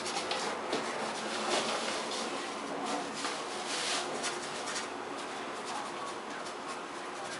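Paintbrush stroking and scrubbing on a canvas: irregular scratchy strokes, many in the first four seconds or so, then fewer over a steady hiss.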